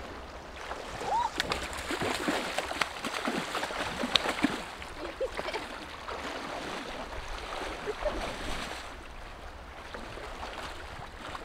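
Shallow river water splashing and sloshing around a wading angler's legs and a landing net held in the current, with many small, irregular splashes over the steady rush of the river as a hooked coho salmon is brought toward the net.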